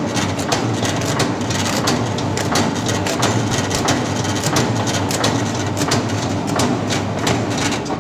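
Stainless-steel chicken cube-cutting machine running: a steady motor hum under a dense, uneven rattle of clicks and knocks from its moving roller chains and cutting parts.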